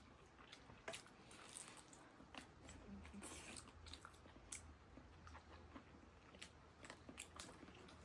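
Quiet eating sounds up close: a person chewing and biting food, with many small irregular crunchy and wet clicks.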